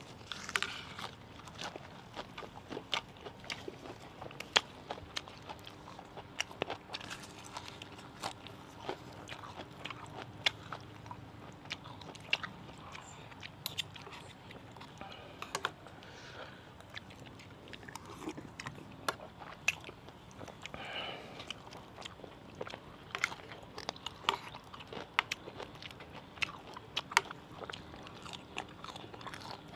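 Close-miked eating: a person biting and chewing fresh raw leaves and spicy santol salad, with frequent irregular crisp crunches and wet chewing.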